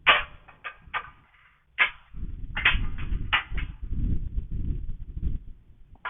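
A kissing gate being pushed open and swung through: a series of sharp knocks and clatters, about seven in the first four seconds, as the gate moves and strikes its frame. A low rumble runs under it from about two seconds in.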